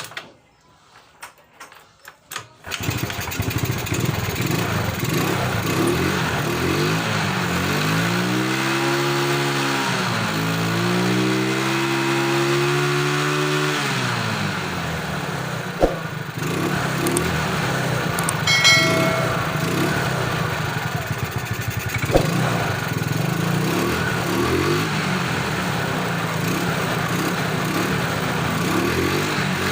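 Yamaha Mio Smile scooter's single-cylinder engine starting up about three seconds in, then idling and revved twice, with single sharp ticks a few times.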